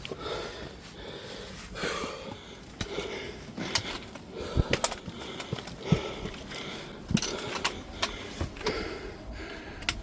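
A climber on a steep rock pitch: breathing in short noisy breaths, with scattered sharp clicks and knocks of hands and boots on the holds.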